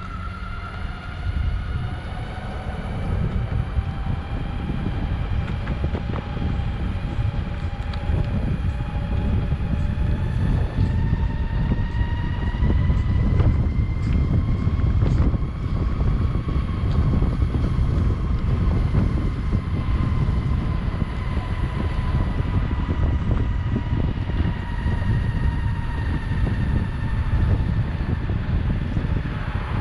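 Electric skateboard motor whining as the board rides, its pitch climbing slowly through the first half and easing down again, over a steady low rumble from the wheels rolling on concrete.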